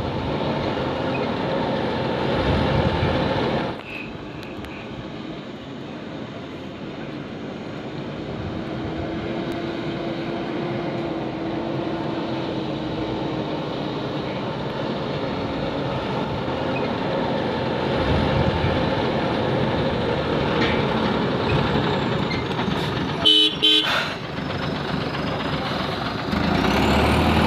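Ashok Leyland six-tyre truck's diesel engine running as the fully loaded truck creeps along a dirt track, growing louder as it comes close near the end. A short horn toot sounds about 23 seconds in.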